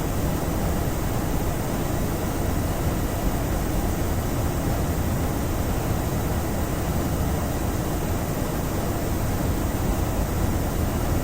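Steady rushing noise of airflow and the CFM56 engines of a Boeing 737-800, heard from the flight deck during the climb after takeoff.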